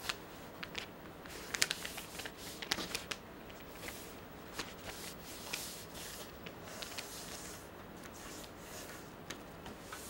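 A large sheet of wrapping paper rustling and crinkling as it is folded and smoothed flat by hand on a table, with scattered light crackles.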